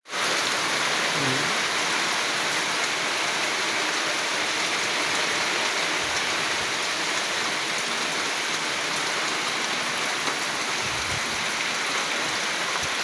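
Steady, even rush of water, the constant hiss of rain or running water with no rhythm or change.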